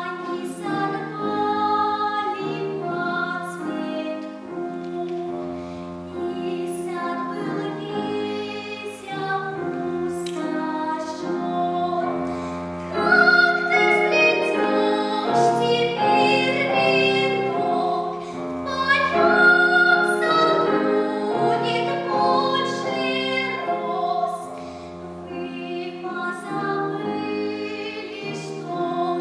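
A child singing a classical piece in trained academic style, with piano accompaniment. The voice swells louder on high notes about 13 and 20 seconds in.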